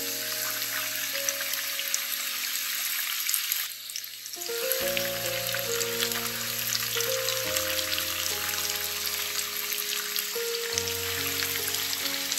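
Flour-coated chicken fillets sizzling and crackling in hot frying oil in a pan, a dense spattering crackle, over background music.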